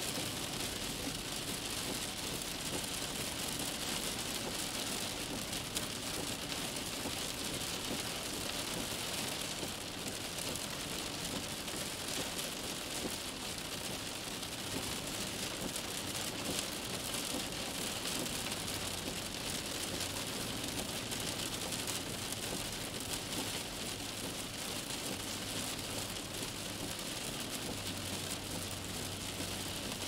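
Steady hiss of rain while driving, with a low, even vehicle hum underneath.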